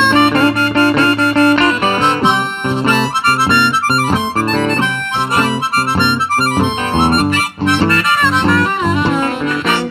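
Blues harmonica solo with bending, wailing notes over a steady guitar rhythm.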